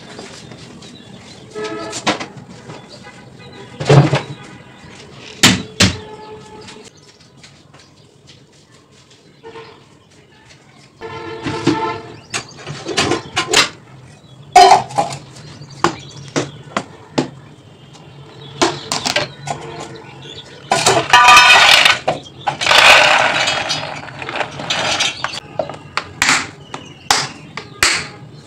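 Vocals-only nasheed background music, with many sharp knocks and clatters of objects being handled over it. The clatter gets thicker about three quarters of the way through.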